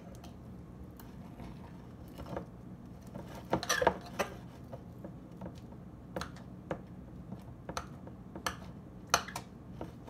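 Homemade conditioner-and-baking-soda slime being kneaded and squished by hand, giving sticky pops and clicks at irregular intervals, with a quick cluster of them a few seconds in.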